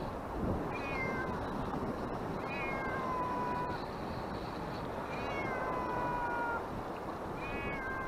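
A gull calling repeatedly: four long mewing calls, each dropping quickly in pitch and then held for most of a second, about two seconds apart, over steady wind and surf noise.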